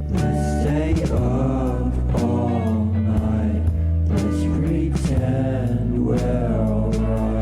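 Background music: a song with a sung vocal line over bass and guitar.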